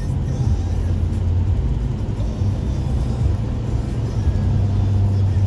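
Steady road noise inside a car driving on a rain-wet freeway: a low hum from the engine and tyres under an even hiss from the wet road.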